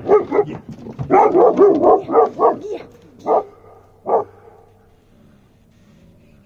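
A dog barking: a quick run of barks for about three seconds, then two single barks nearly a second apart.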